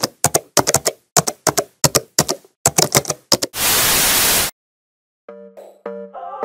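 Typing sound effect: a quick run of sharp key clicks, about three a second. Then a loud burst of TV-static hiss lasting about a second. After a brief gap, electronic music with steady pitched notes starts near the end.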